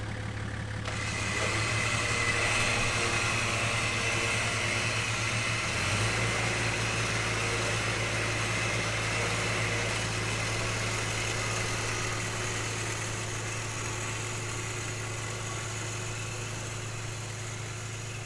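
Nissan 4x4 engine idling steadily, a low even hum with hiss over it; its deepest layer drops away about six seconds in.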